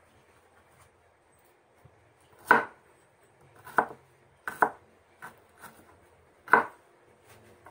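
Kitchen knife chopping a red onion on a wooden cutting board: about seven sharp, irregularly spaced knocks of the blade on the board, the loudest about two and a half seconds in and near the end.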